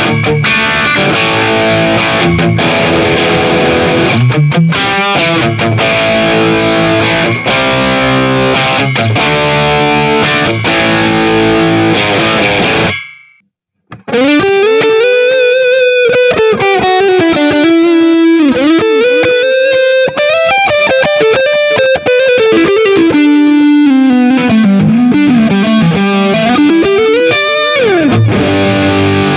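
Jet JT-300 Telecaster-style electric guitar with two single-coil pickups, played with distortion. It opens with dense chord riffing that cuts off sharply about 13 s in, and after a second's break comes a single-note lead line with wide string bends and vibrato. Full chords return near the end.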